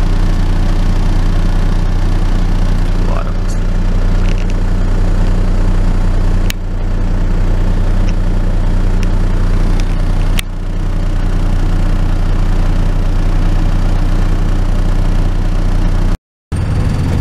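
Small bus engine idling steadily, heard from inside the cabin by the open door, with a brief dropout near the end.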